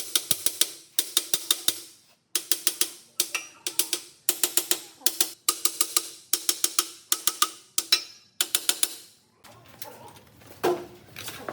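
Hammer blows on metal in quick runs of several ringing strikes, about five a second, with brief pauses between the runs.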